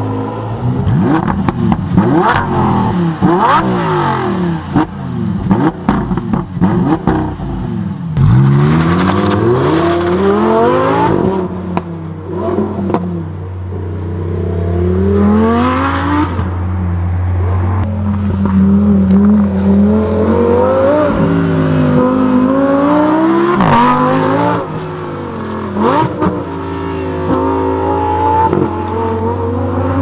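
Lamborghini Huracán STO's 5.2-litre V10 revving hard on the move through repeated gear changes. The pitch climbs and drops sharply at each shift, with falling sweeps as it slows, and sharp cracks from the exhaust at several points.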